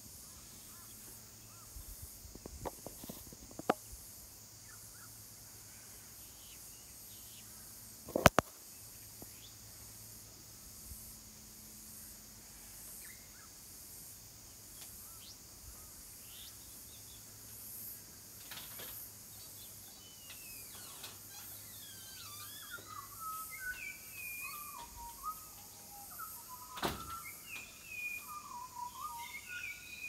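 Wild birds calling: scattered short chirping notes that grow busier in the last ten seconds, over a steady high hiss. A few sharp clicks come through, the loudest about eight seconds in.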